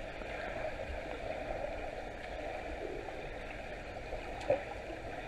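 Underwater pool sound picked up by a submerged camera: steady, muffled water noise, with one short knock about four and a half seconds in.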